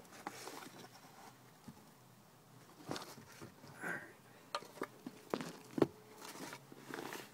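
Irregular clicks and knocks of a screwdriver and hands working a plastic snap-on wheel off its axle, prying back the locking pin. The loudest knock comes a little before six seconds in.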